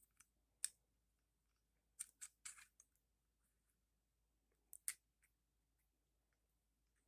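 Faint metal clicks and scrapes of a 1911 pistol's slide being worked back along its frame by hand: one click about half a second in, a short cluster around two to three seconds, and another couple near five seconds.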